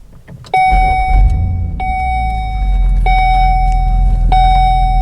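Volvo S80's 4.4-litre V8 with an aftermarket Becker exhaust starting about half a second in, flaring briefly, then settling into a steady idle, heard from inside the closed cabin. A dashboard warning chime repeats about every second and a quarter over it.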